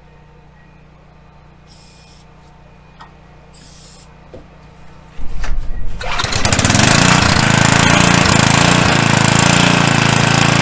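Portable generator's small gasoline engine starting about five seconds in, catching and running loudly and steadily, with its carburetor fuel hoses freshly replaced after a fuel leak.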